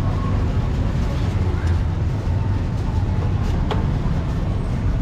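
Busy market background: indistinct voices of people over a steady low rumble, with one sharp click a little past halfway.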